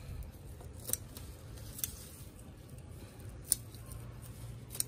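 Scissors snipping through water spinach stems cut near the base: four sharp snips at uneven intervals.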